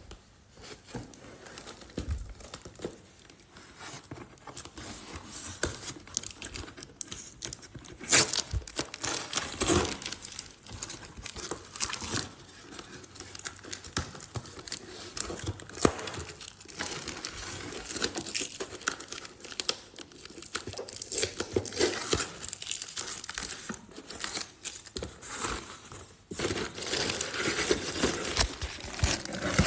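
Packaging crinkling and tearing in irregular bursts as a newly bought item is unboxed by hand.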